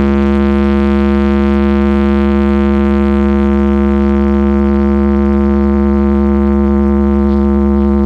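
A single low, buzzy electronic drone held at one unchanging pitch, played loud through a large carnival speaker stack.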